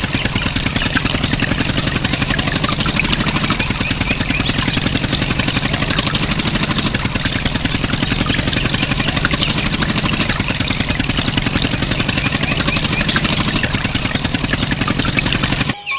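Tractor diesel engine running at idle with a fast, even chugging, cutting off suddenly just before the end.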